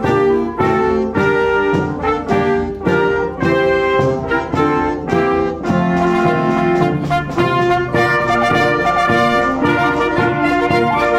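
A brass-led wind band playing a tune with brass and woodwinds. Short, evenly repeated notes give way to longer held notes about halfway through.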